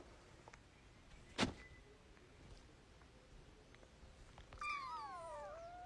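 A cat meowing: one long meow near the end that slides down in pitch. A single sharp click comes about a second and a half in.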